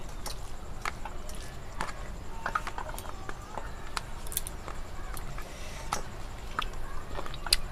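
Eating by hand from steel plates: scattered light clicks and taps of fingers, rice and steel bowls against the plates, over a low steady background hum.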